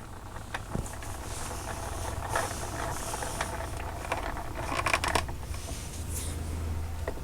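Light handling noises: scattered small clicks and a few brief rustles, over a low steady hum.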